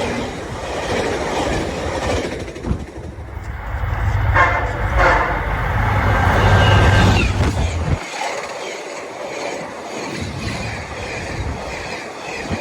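Train passing, its wheels clacking over the rail joints under a heavy rumble, with a train horn sounding. The low rumble drops away abruptly about eight seconds in.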